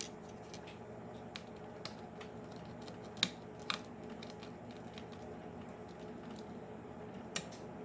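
Sparse small clicks and taps of hand tools and screws against a laptop's plastic casing during screen disassembly, a few seconds apart, over a steady low hum.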